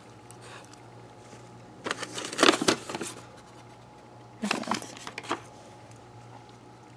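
Manila paper envelope rustling and crinkling as it is handled and opened, in two short bouts, the first about two seconds in and the second about four and a half seconds in.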